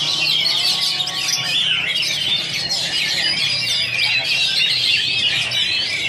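Oriental magpie-robin (kacer) singing: a dense, unbroken stream of quick chirps and short whistles.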